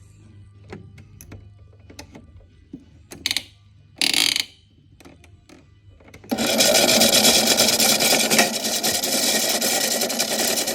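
A few light clicks and two short bursts of noise, then about six seconds in a toy washing machine starts and runs steadily and loudly, with dominoes rattling around in its drum.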